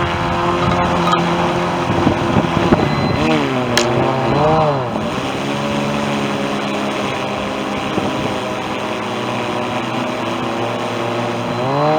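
Aquatic rover's motor running over steady wind noise. Its pitch dips and sweeps back up a few seconds in, and again near the end, as the speed changes.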